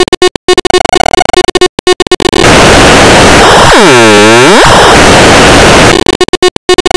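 Harshly distorted, clipped cartoon audio from an effects edit: loud noise that stutters and cuts in and out over the first two seconds and again near the end, with an unbroken wall of noise in between that carries a whooshing sweep about four seconds in.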